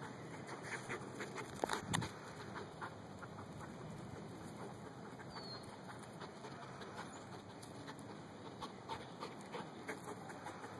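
A dog sniffing and moving through grass while searching for a small article: faint short rustles and clicks throughout. A bird gives a brief chirp near the start and again about halfway through.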